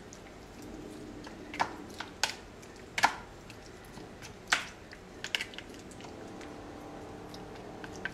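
A plastic spoon stirring cubed raw fish in lime juice in a plastic bowl: a scattering of irregular sharp clicks as the spoon knocks against the bowl, over a faint steady background noise.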